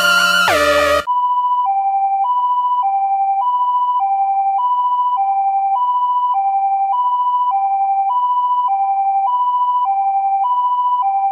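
Synthesized emergency alert alarm tones. A dense cluster of gliding, warbling tones cuts off about a second in and gives way to a hi-lo two-tone alarm, alternating evenly between a higher and a lower pitch a little more than every half second.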